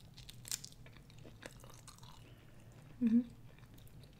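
Close-miked eating: a bite into a seaweed-wrapped sushi roll, then chewing with small wet mouth clicks. A short hummed "mm" about three seconds in is the loudest sound.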